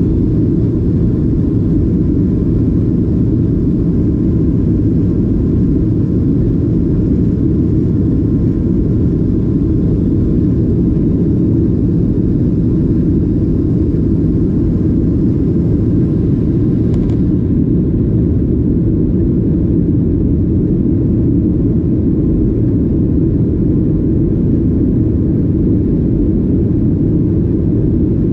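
Steady, loud rumble of an airliner cabin in flight, Boeing 737 engine and airflow noise with a faint hiss above it. About 17 seconds in there is a faint click, after which the hiss eases slightly.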